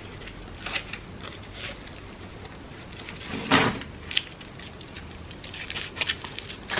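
Crepe paper rustling and crinkling in short, scattered bursts as a strip is wrapped and twirled around a paper flower's centre, with one louder crinkle about halfway through.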